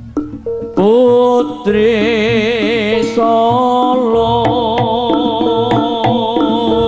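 Live traditional Javanese ensemble music for a barong dance: repeated struck pitched notes and drum strokes, with a loud wavering melody line with strong vibrato entering about a second in and carrying over the percussion.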